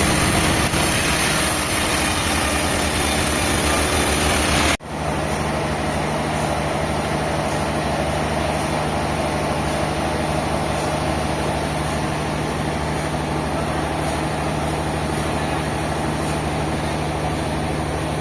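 Heavy sawmill machinery running steadily with an engine-like hum. About five seconds in the sound cuts off abruptly and switches to a steadier, lower machine hum.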